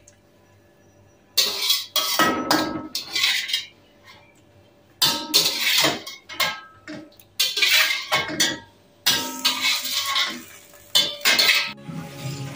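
Metal spatula scraping and clinking against a wok as stir-fried vegetables are scooped out onto a plate, in a series of short clattering bursts about a second long with quiet gaps between.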